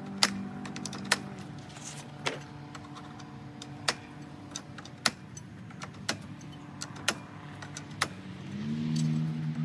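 Engine running at idle with a steady low hum that rises in pitch near the end. Sharp, irregular clicks and knocks come over it, about one a second.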